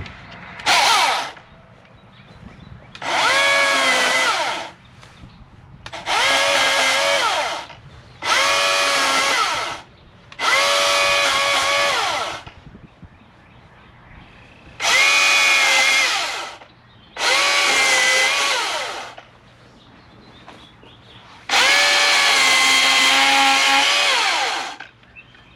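Milwaukee M18 16-inch battery chainsaw cutting tree limbs in eight short bursts, one very brief and the rest one to three seconds each, each starting and stopping sharply. The motor's whine sags in pitch as the chain bites into the wood.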